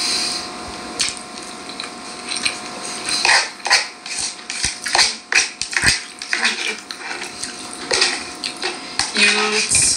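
Irregular clinks and knocks of utensils against pots and dishes, over a steady hum.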